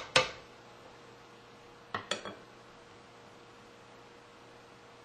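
A wooden spoon knocking against a pan: one knock right at the start, then three quick knocks about two seconds in. A faint steady hum runs underneath.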